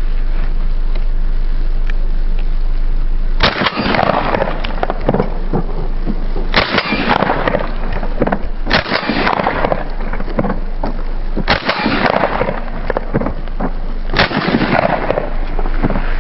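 Steady wind rumble on the microphone. About every three seconds a crackling, crunching rustle of about two seconds cuts in sharply, five times in all: the hunter's movement in snow.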